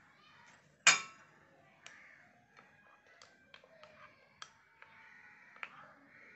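A spoon clinking and knocking against a bowl as a vegetable salad is mixed: one loud knock about a second in, then scattered lighter clicks.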